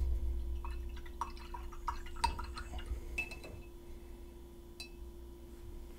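A fan paintbrush being rinsed of acrylic paint in a cup of water: swishing and dripping, with a run of small clinks as it knocks against the cup, thinning out after about three seconds.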